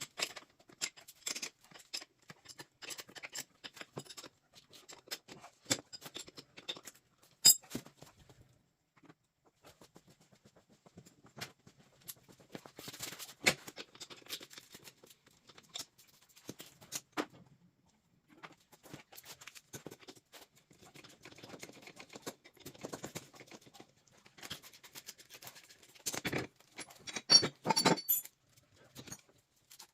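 Irregular metallic clicks, clinks and short clatters of hand tools on bolts, as the rear axle clamp bolts of a Polaris 330 Trail Boss quad are being loosened. The busiest clatter comes near the end.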